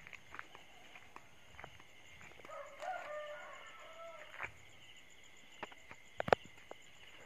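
A rooster crows once, a faint call of nearly two seconds starting about two and a half seconds in, over a steady high drone of night insects. A single sharp tap sounds about six seconds in.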